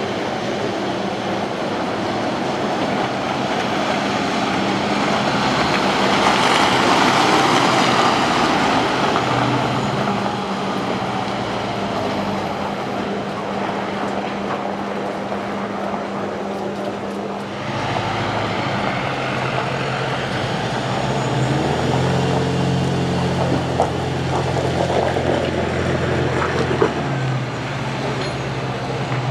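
Mercedes Unimog truck's diesel engine running as it drives over rough off-road ground, with tyre and body noise. The sound swells to its loudest about a quarter of the way in. After a sudden break past the middle, the engine's hum is steadier and deeper.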